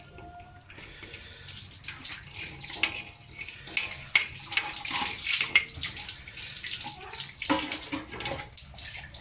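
Asafoetida (hing) roasting on a hot tawa griddle, sizzling and crackling as it is puffed up. The sizzle is faint at first and thickens into a dense, even crackle about a second and a half in.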